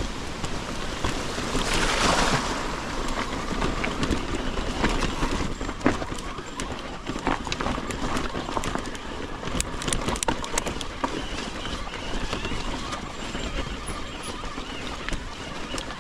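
Mountain bike riding down a rough, rocky trail: tyres rumbling over stones and the bike rattling, with frequent sharp clattering knocks. A short rush of noise about two seconds in.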